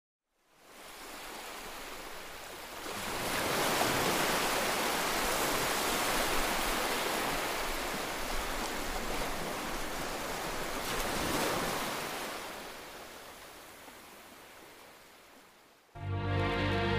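Steady rushing noise with no motor whine in it, building about three seconds in and slowly fading toward the end. Music with a beat starts abruptly just before the end.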